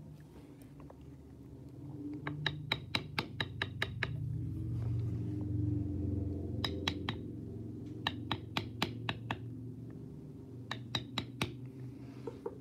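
A mallet tapping a checkered beveling tool into tooling leather, in quick runs of light strikes about five or six a second, with short pauses between runs as the tool is moved along the flower petals.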